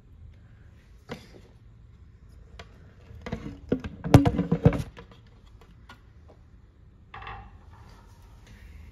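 The clear plastic cover of a natto-making machine is lifted off. There is a single click about a second in, then a cluster of plastic knocks and clatter around the middle, and a short burst of handling noise near the end.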